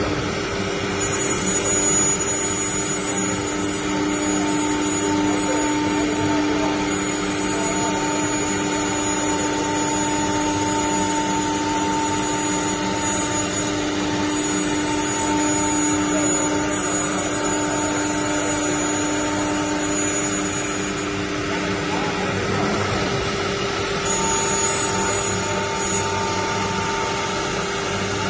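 Four-head CNC wood router running: a steady machine whine of several held tones over a rushing noise, which shift briefly about three quarters of the way through.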